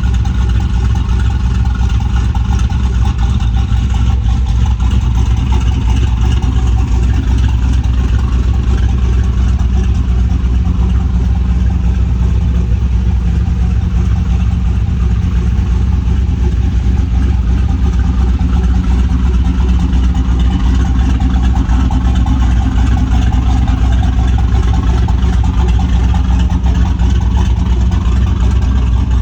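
Turbocharged LS V8 truck engine idling steadily through an open 4-inch exhaust cutout, a deep, bassy, throaty idle with a little chop from its tuned timing.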